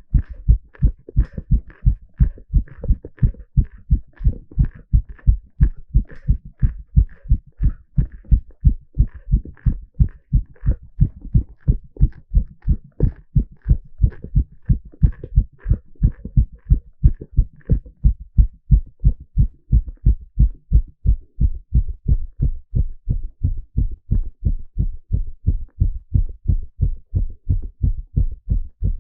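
A man's heart beating fast and evenly, heard close up, during an exercise stress test.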